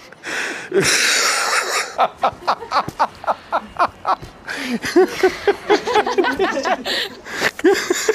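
People laughing in rapid 'ha-ha' pulses, several a second, with a long breathy stretch of laughter near the start.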